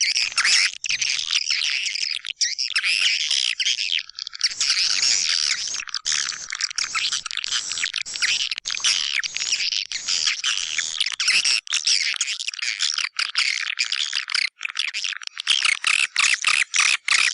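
Recorded twittering of white-nest swiftlets: a dense, fast stream of high chirps. It is a swiftlet-house lure call, played to draw the birds in to roost and nest.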